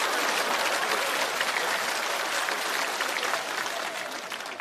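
Studio audience applauding, a dense patter of many hands clapping that slowly fades away toward the end.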